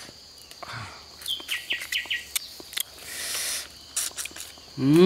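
Forest ambience: a steady high insect buzz, with a bird giving a quick series of falling chirps about a second and a half in, and a few light clicks. Just at the end a loud pitched call that rises and falls, like a voice, begins.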